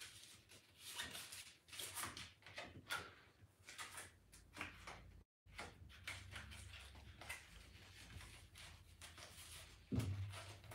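Faint rustling and crinkling of a thin plastic film sheet and its paper sleeve being handled and slid out, with a soft thump near the end.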